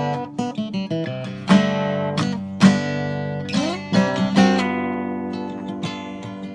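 Solo plucked string instrument playing a tune, mixing struck chords with single notes that ring and die away. About three and a half seconds in, one note slides upward.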